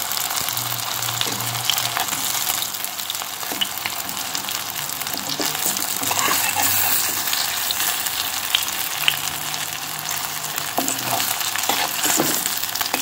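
Corn-and-potato cutlets shallow-frying in about a teaspoon of oil in a thin-bottomed kadhai: a steady sizzle with scattered small pops. Near the end a metal spatula scrapes the pan as the cutlets are turned.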